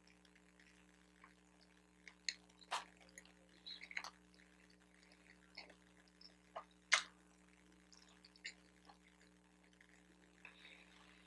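Close-miked chewing of a bacon, egg and Swiss cheese bagel sandwich: soft, wet mouth clicks and smacks at irregular intervals, the sharpest about 3 and 7 seconds in.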